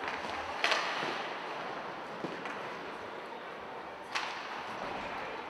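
Live ice hockey play: a steady hiss of skates on ice and rink noise, with two sharp cracks of stick and puck, one about half a second in and one about four seconds in.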